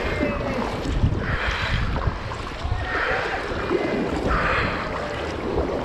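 Kayak paddle blades splashing into the sea in a steady rhythm, about one stroke every second and a half, over a constant low wind rumble on the microphone.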